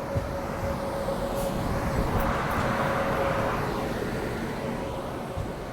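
Hirakhand Express passenger train running on the track, heard from on board: a steady rumble with a thin steady whine, and a swell of rushing noise in the middle.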